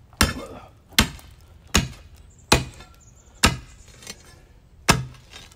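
Steel rock bar driven down into a concrete post footing, six sharp strikes, most under a second apart, some with a short ring. The bar is chipping out concrete that a rotary hammer has already cracked.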